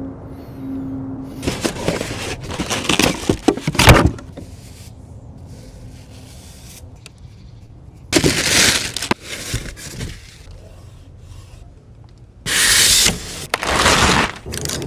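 Unboxing noises: packaging handled in several bursts of rustling and scraping, with a sharp knock about four seconds in.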